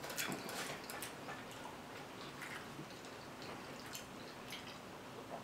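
Quiet eating sounds: a few faint scattered clicks and taps of a fork on a plate, with chewing.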